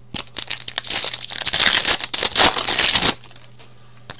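Hockey card pack wrapper crinkling and tearing as a pack is opened by hand, a dense crackle that stops about three seconds in.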